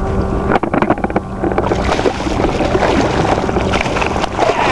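Wind buffeting the microphone as a steady low rumble, with a quick run of clicks and knocks about half a second to a second and a half in.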